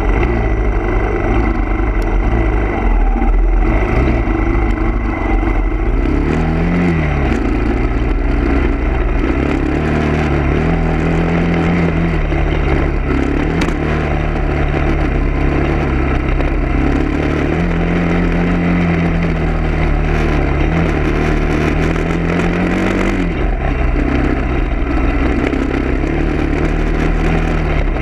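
A vehicle engine running while driving, over a steady low road rumble. Its pitch rises about a quarter of the way in, holds with small shifts, then drops and settles lower near the end, as the engine speeds up and eases off.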